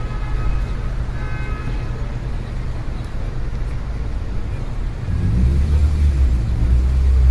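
City street traffic: a steady low rumble of passing cars, with a brief high-pitched tone near the start. From about five seconds in, a heavier vehicle's engine rumble grows louder.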